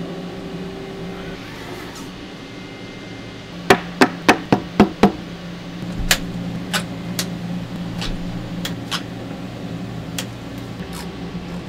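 Sharp metal knocks and clicks as the top jaws of a Schunk ROTA THW three-jaw lathe chuck are worked loose and changed with a hex key. A quick run of about six knocks comes a few seconds in, then scattered single clicks, all over a steady low machine hum.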